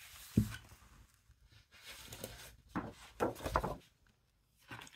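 Hands handling a plastic-wrapped pad of card paper on a desk. There is a soft thump about half a second in, then a few rustles and light knocks around three seconds in.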